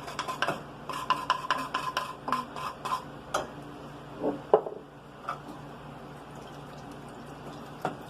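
Kitchen utensil clinking and tapping against cookware while sauce ingredients are being combined. There is a quick run of clinks for about three seconds, then a few separate knocks, fewer toward the end.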